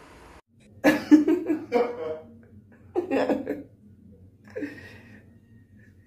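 A person laughing in three short bouts, the first a run of quick pulses and the later two brief.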